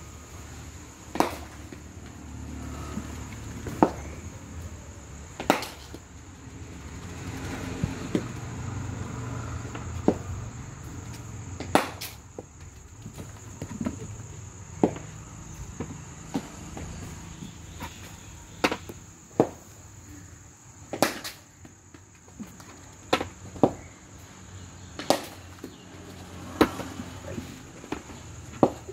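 Cricket ball knocking sharply off a bat and the pitch every few seconds, sometimes two knocks close together, over a steady high insect drone.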